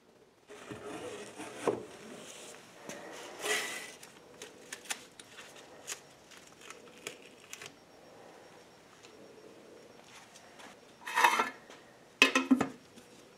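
Handling noises from a metal quart paint can and a plastic mixing cup on a workbench: rustling, light clicks and knocks as the can is set down and its lid and masking tape are handled. A louder rustle comes about eleven seconds in, then a few sharp knocks near the end.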